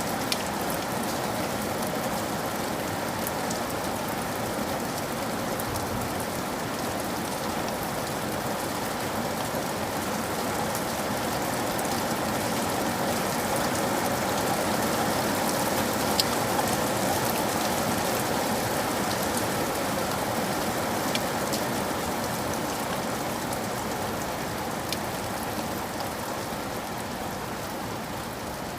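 Steady rain falling, a continuous even patter with scattered sharper drops standing out. It swells a little in the middle and eases off slightly near the end.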